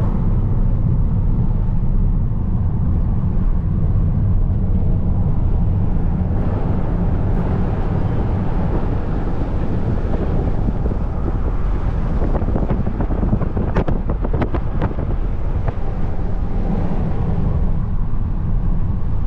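Steady loud rush of wind and road noise from a moving car, heavy in the low end, with a few light knocks about two-thirds of the way through.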